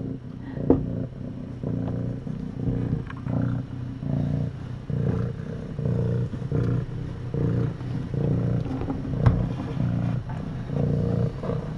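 Mother cat purring steadily in a regular pulsing rhythm, rising and falling with each breath in and out: a contented purr. Two short sharp knocks, about a second in and again past the nine-second mark.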